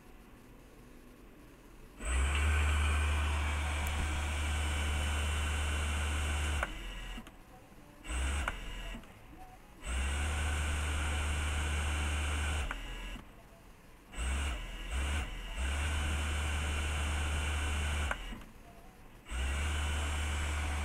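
Industrial sewing machine servo motor spinning its bare pulley in repeated runs: a steady low hum with a faint high whine that starts and stops abruptly, four longer runs of a few seconds each with a few short blips between them.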